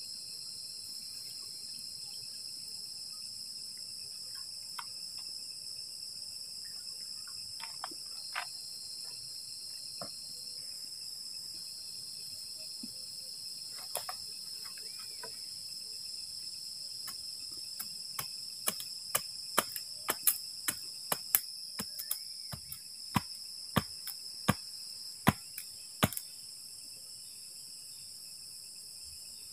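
Crickets and other night insects chirring in a steady, high-pitched chorus. About two-thirds of the way in comes a run of sharp clicks or knocks, one or two a second, for about eight seconds.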